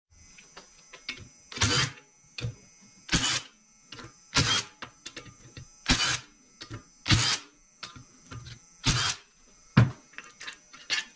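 Cordless impact driver hammering out the side-cover bolts of a Predator 212 engine's crankcase: about seven short rattling bursts, one per bolt, with small clicks of bolts and tool between them.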